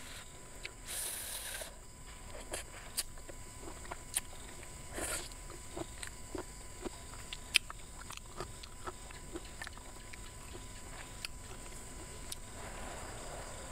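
Close-up eating sounds: slurping up strands of green papaya salad and chewing, with many short sharp clicks of wooden chopsticks and crunches. Two slurps stand out, about a second in and about five seconds in. A steady high insect trill runs underneath.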